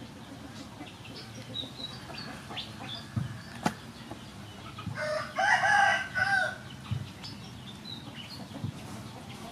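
A rooster crows once, about five seconds in, a call lasting about a second and a half, over faint background noise with a sharp tick and a few small knocks before it.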